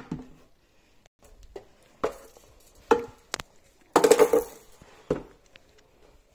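Baby doll knocking against wooden stair steps as it is hopped up the stairs by hand: single knocks about a second apart, with a quick run of knocks about four seconds in.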